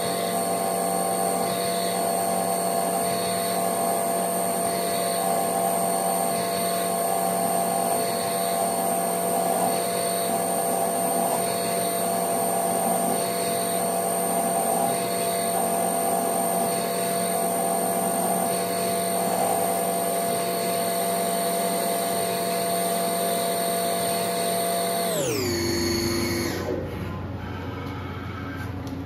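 Mill spindle running at a steady high whine while a long drill bit peck-drills a fuse hole: the cutting sound pulses about every second and a half as the bit feeds down and pulls back to clear chips. About 25 seconds in, the spindle winds down, its pitch falling, and stops.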